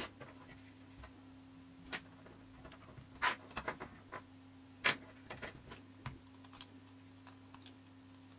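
Scattered light clicks and taps of small electronic parts and tools being handled during a phone teardown, with a small cluster about three to four seconds in and a sharper tap near five seconds, over a faint steady hum.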